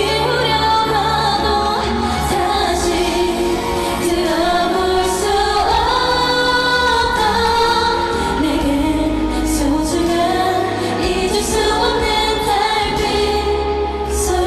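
Women singing a slow K-pop song live into handheld microphones, their voices amplified over a backing track with a steady bass line, with long held notes.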